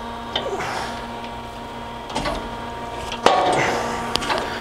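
Cincinnati Milacron-Heald 273A internal grinder running with a steady hum as its table slides. There are a few light knocks, and a sharp metallic clunk about three seconds in.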